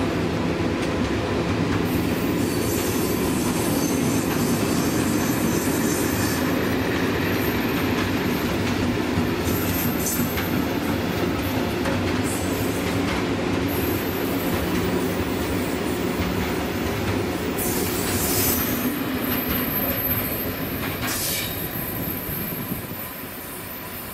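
Freight train of coal wagons behind an ET40 electric locomotive passing through without stopping: a steady rumble and clatter of wagon wheels over the rail joints, with thin high wheel squeals now and then. The noise fades over the last few seconds as the train draws away.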